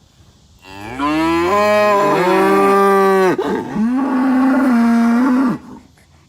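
A cow mooing loudly twice: a long moo that starts low, rises and then holds, followed by a shorter moo held at a slightly higher pitch.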